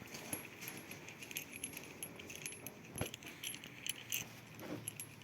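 Faint, irregular light metallic clinks and ticks of a hand tool on metal as a bolt on a pit bike's handlebar fitting is being unscrewed, with one sharper click about three seconds in.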